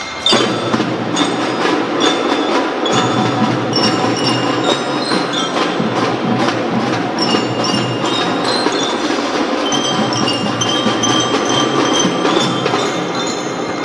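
Children's marching drum band playing: bell lyres ring a melody over snare drums, marching toms and bass drums. The full band comes in with a loud hit just after the start and keeps playing steadily.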